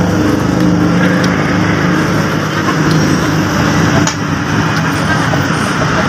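Loud, steady road traffic noise, with motor vehicle engines running close by.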